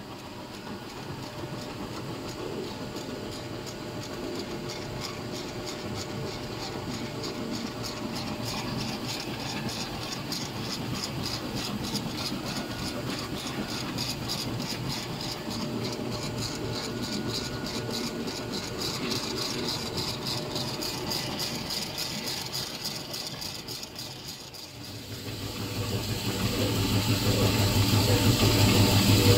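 BIMEC STB-45 double-shaft slitter-rewinder running, slitting a web and winding it onto rolls: steady mechanical running noise with a fast, even rattle. About 25 seconds in the sound changes to a louder, lower steady hum.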